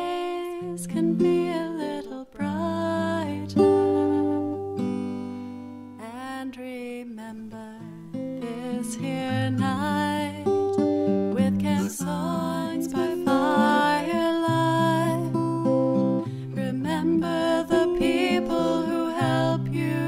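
Recorded song: acoustic guitar strumming with sung vocals, an original camp anthem.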